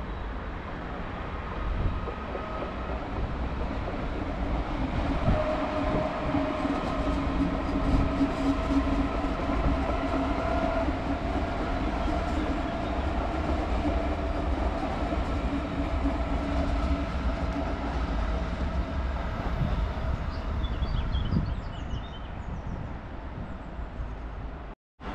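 A train running along the rails: a steady rumble of wheels on track, with a whine of steady pitch over it through the middle. The sound cuts out abruptly for a moment near the end.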